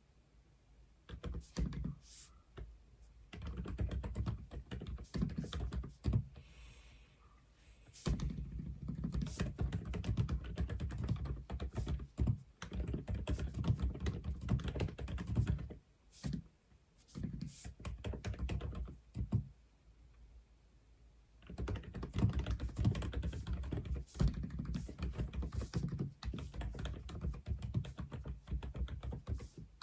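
Typing on an Aula F87 (독거미) mechanical keyboard: runs of rapid keystrokes several seconds long, broken by brief pauses.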